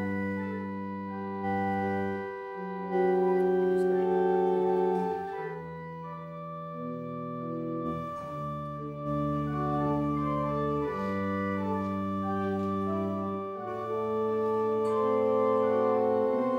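Organ playing slow, sustained chords that change every second or two.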